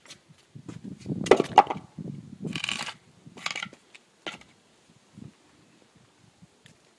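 Handling noise: a string of knocks, clicks and scrapes, loudest a little over a second in, with a short hissy rattle near 3 s and two single clicks after it, then it goes quiet.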